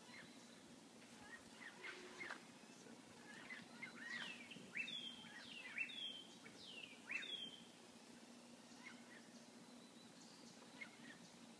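Birds calling from the trees: short, faint chirps and whistled calls that glide up and down in pitch, with three louder calls about a second apart in the middle. A faint steady hum runs underneath.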